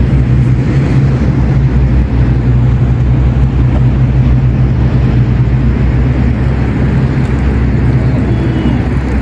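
An engine running steadily with an even low hum, without revving.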